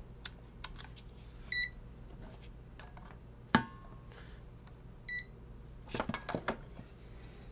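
UNI-T UT204+ digital clamp meter beeping twice, about three and a half seconds apart, among sharp clicks from its rotary dial and buttons being worked; the loudest click comes about halfway through.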